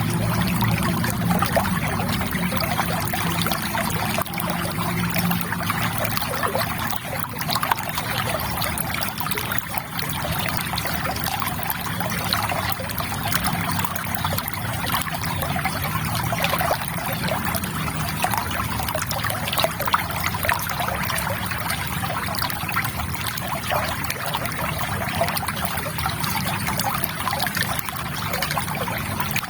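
River water trickling and babbling steadily, a dense, unbroken splashing.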